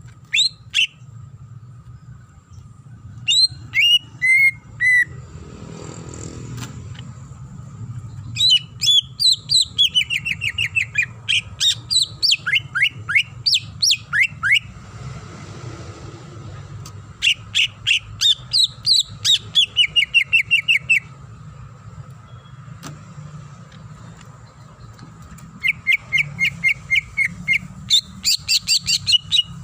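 Cucak ijo (green leafbird) singing in loud bursts of rapid repeated chirps and falling whistles, with short pauses between the phrases, under a faint steady background hum.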